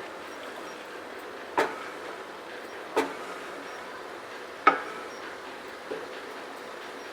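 A spatula knocks sharply against the cooking pan three times, about a second and a half apart, with the third knock the loudest and a fainter fourth knock near the end. Under the knocks runs a steady hiss, from the chicken and masala frying.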